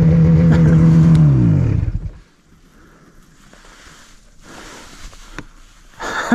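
Snowmobile engine running steadily, then winding down in pitch and dying away about two seconds in, leaving faint rustling with a few clicks.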